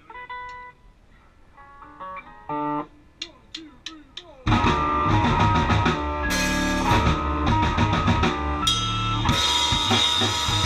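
A synth-rock band of drum kit, electric guitar and keyboard synthesizer jamming. For the first few seconds only sparse, quiet single notes sound, then about four and a half seconds in the whole band comes in together loudly and keeps playing.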